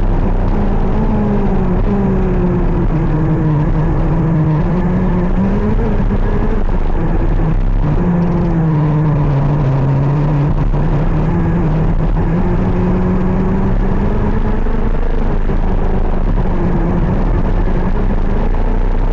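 KZ 125 shifter kart's 125 cc two-stroke engine running hard, its pitch sinking and climbing again as it slows and accelerates, with the lowest points about four and nine seconds in.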